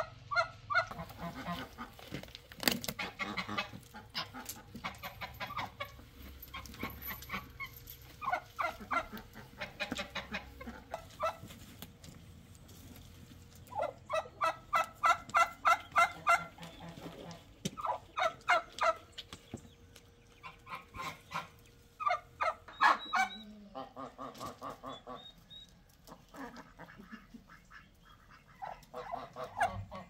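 Domestic geese honking in repeated bouts, the longest a quick run of about ten honks midway.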